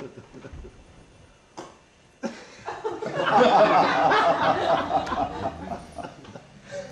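Audience laughing, starting suddenly about two seconds in, swelling to a peak and fading near the end.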